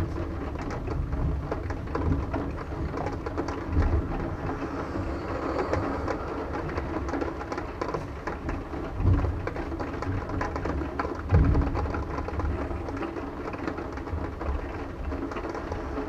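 Rain falling steadily during a thunderstorm, with many small drop ticks and a low rumble of thunder that swells three times.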